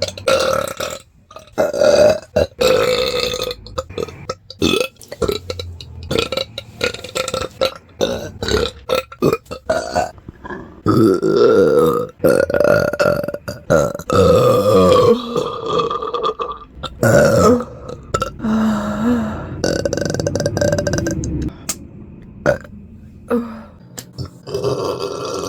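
A person belching over and over: a string of loud burps, some short and some long and drawn out, the longest lasting a few seconds around the middle.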